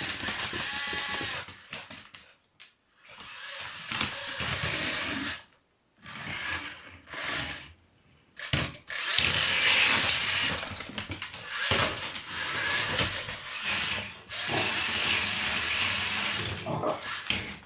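MiPosaur toy robot dinosaur's electric drive motors whirring in bursts of a few seconds as it rolls about, stopping and starting several times.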